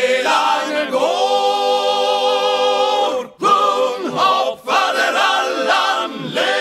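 Choir singing a cappella: voices in harmony on long held notes, broken by short pauses between phrases.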